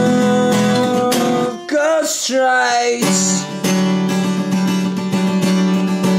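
Acoustic guitar strummed in steady chords. About a second and a half in, the chords break off and a wavering, sliding pitched sound fills the gap; the strumming starts again about three seconds in.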